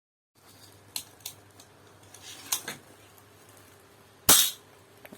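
A small pistol with a few light clicks, then one loud, sharp shot about four seconds in.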